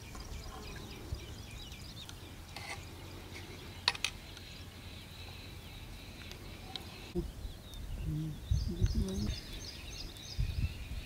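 Small birds chirping and calling, with a sharp click about four seconds in and low knocks and thuds in the last few seconds.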